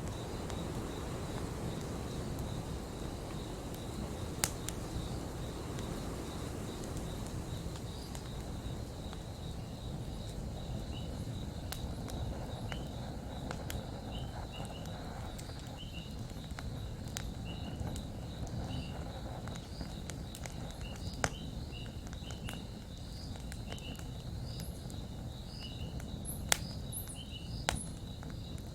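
Campfire burning with a steady low rush of flame and a few sharp crackling pops. From partway through, short high chirps repeat about once or twice a second, like a cricket.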